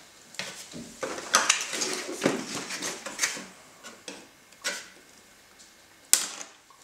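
Cardboard and plastic packaging rustling and clattering, with scattered clicks and one sharp snap about six seconds in, as the clips holding a radio-controlled car in its box are undone.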